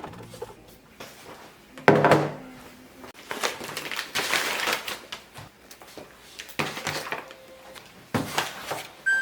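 Knocks and clatter of containers and a refrigerator door being handled while a fridge is cleared out, with a sharp knock about two seconds in, a longer noisy stretch in the middle, and more knocks near the end.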